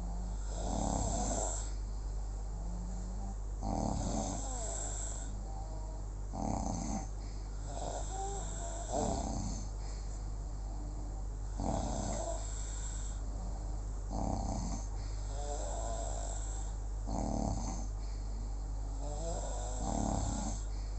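Snoring in a steady rhythm, about eight snores, one every two and a half to three seconds, each with a breathy hiss, over a constant low hum.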